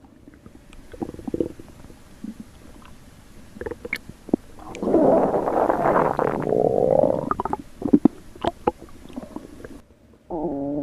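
Human stomach growling. Soft gurgles and pops build into a louder, drawn-out rumble about five seconds in, which turns into a rising squeal near its end. A few quick pops follow.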